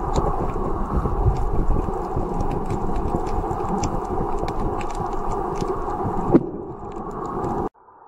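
Muffled underwater noise: a steady rumbling wash of water with scattered sharp clicks. It drops a little about three quarters of the way through and cuts off abruptly near the end.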